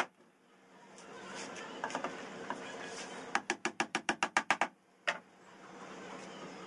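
A small hammer tapping rapidly on a particleboard drawer box. A quick run of about ten taps, some eight a second, comes in the middle, followed by a single tap, with a few lighter knocks a little earlier.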